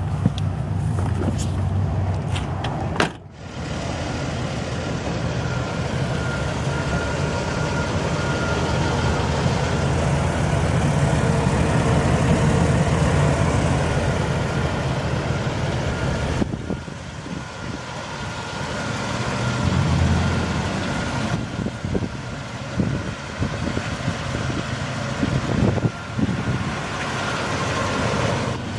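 Steady motor-vehicle running noise, heaviest in the low end, with a faint steady whine; it drops out sharply for a moment about three seconds in.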